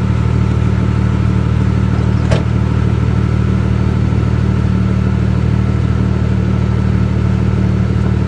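Off-road vehicle engine running at a steady low drone, with no change in pitch. A single sharp click sounds a little over two seconds in.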